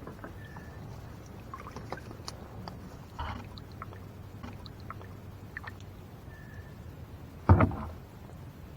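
Kayak being manoeuvred in shallow water: light water splashing and dripping with scattered small clicks and knocks, and a louder knock against the hull about three-quarters of the way through.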